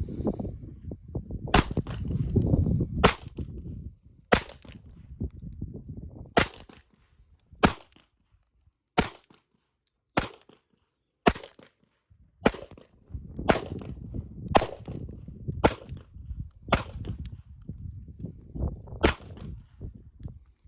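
Sig P229 pistol in .40 S&W being fired in slow, steady succession: about fourteen shots, roughly a second apart.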